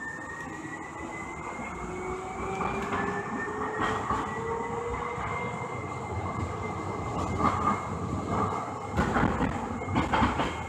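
Siemens S200 light rail car's traction motors whining as the train accelerates, the whine rising in pitch over the first few seconds and then holding steady, heard from inside the car over the rumble of wheels on the rails. Several sharp knocks come near the end.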